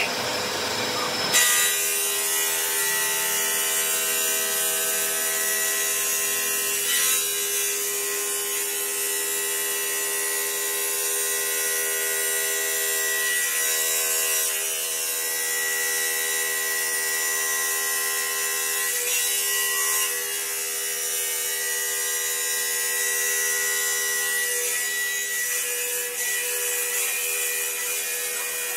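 A stone-cutting bridge saw's blade cutting through a granite slab: a steady, high grinding whine with several held tones. It starts abruptly about a second in.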